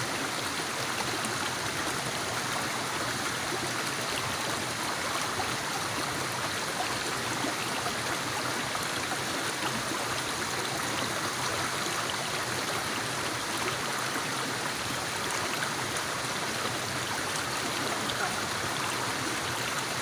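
A shallow rocky stream running steadily, water rushing and burbling over stones.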